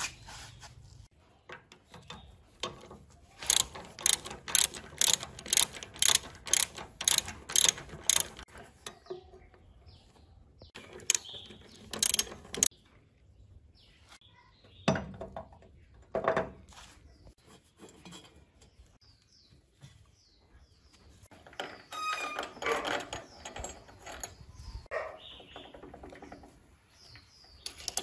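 Hand tools working on an old cast-iron milling machine. A quick run of sharp metal clicks, about three a second, lasts several seconds. A few separate knocks follow, then a busier patch of metal clattering and more clicks near the end.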